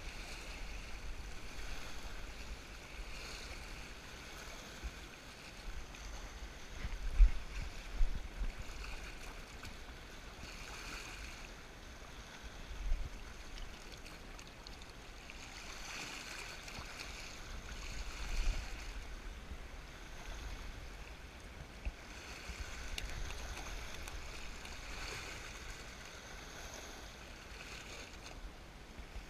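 Sea waves washing in and out over the rocks, swelling and ebbing every few seconds, with wind buffeting the microphone in gusts, the strongest a few seconds in.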